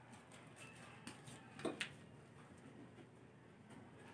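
A few faint clicks and light taps from eating and handling food at a table in a quiet room, two of them louder just under two seconds in.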